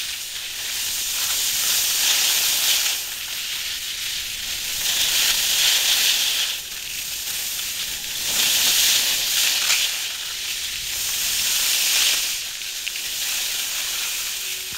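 Skis hissing and scraping over packed snow, swelling and fading in four or five surges a few seconds apart as turns are made.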